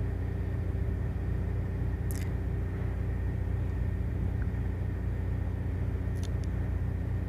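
Steady low machine hum made of several fixed tones, with a faint high whine above it. A couple of light clicks come about two seconds in and about six seconds in.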